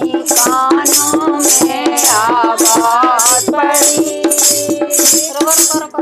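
Devotional folk song music: a rattle keeps a steady beat about twice a second over a low drum stroke about once a second, with a wavering melody line.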